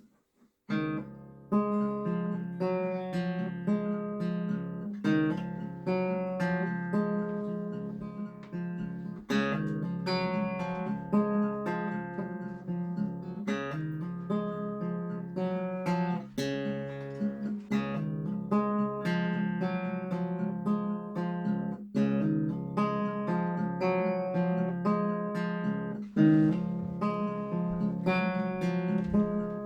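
Background music: an acoustic guitar being plucked and strummed, with notes struck every second or so, starting about a second in.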